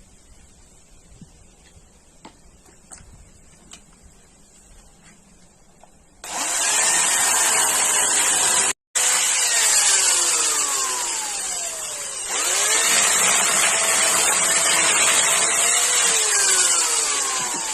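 A chainsaw cutting firewood. For the first six seconds there are only a few faint clicks; then the saw starts cutting abruptly and loudly, its pitch dropping again and again as it bogs down in the wood and then recovering. The sound breaks off for a moment about nine seconds in.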